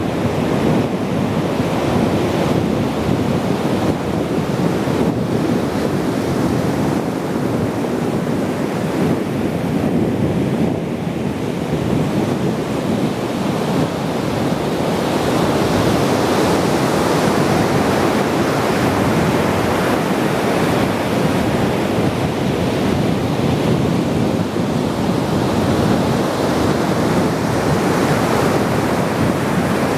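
Ocean surf: waves breaking and washing up the shore in a continuous rush, with wind buffeting the microphone. The hiss of the wash grows brighter about halfway through.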